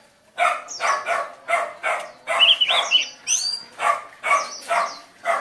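A dog barking over and over, about two to three barks a second, with a white-eye's high warbling whistles and trills sounding over it, most clearly in the middle.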